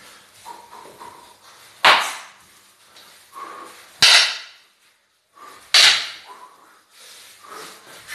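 Arnis sticks landing sharp, cracking strikes three times, about two seconds apart, each ringing out briefly, with softer shuffles and bumps in between.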